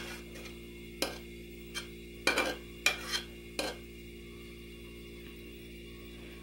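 Metal spoon scraping and clinking against an aluminium saucepan as thick cream is scraped out of it: about eight sharp clinks and scrapes over the first four seconds, some in quick clusters, over a faint steady hum.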